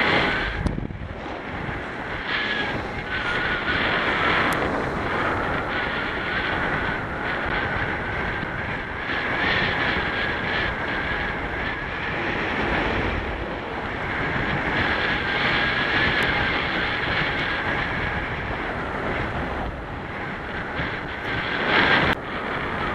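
Wind rushing over a paraglider pilot's helmet-camera microphone in flight, with a thin steady whine that wavers slightly in pitch. A brief louder rush comes about a second before the end.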